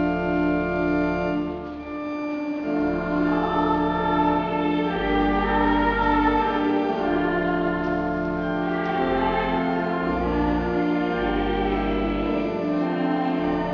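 Two girls singing together as cantors, accompanied by a church organ holding sustained chords; the organ plays alone at first and the voices come in after about two seconds.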